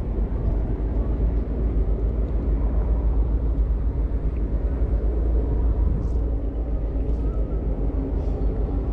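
Wind buffeting the microphone, a steady low rumble that rises and falls, with a few faint ticks late on.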